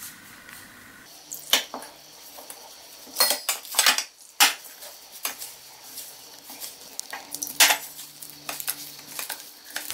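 Hands rubbing dry corn flour around a stainless steel plate: fingers and flour scraping on the metal, with irregular sharp scrapes and clinks against the plate.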